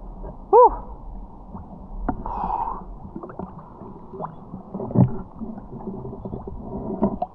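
Muffled water noise picked up underwater, with gurgling. About half a second in there is a short, loud rising-and-falling hum, and a few dull knocks follow later.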